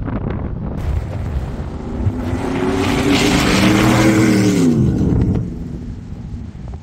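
A Ford Raptor pickup's V8 revving hard as the truck speeds past. The engine note climbs, then drops sharply as it goes by and fades, over a hiss of tyres on dirt, with wind noise on the microphone.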